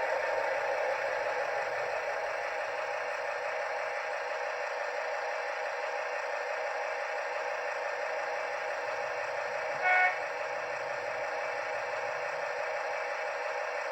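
Sound-fitted model Class 70 diesel locomotive's onboard speaker playing its diesel engine running steadily, with one short horn toot about ten seconds in.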